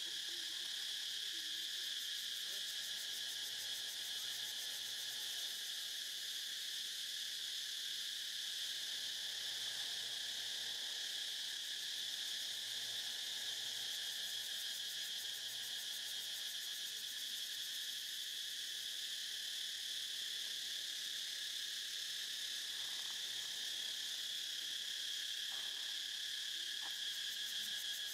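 A steady, high-pitched chorus of many insects droning without a break.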